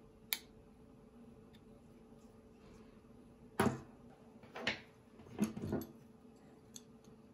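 Handling noise on a wooden tabletop as objects are picked up and set down. A sharp click comes near the start, then a run of knocks and clunks past the middle; the loudest is about three and a half seconds in.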